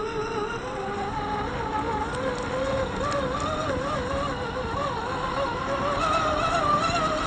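Electric drive motor and gearbox of an RC4WD Toyota FJ Land Cruiser scale RC crawler whining as it drives through heavy snow, the pitch wavering up and down with throttle and load, over a steady hiss.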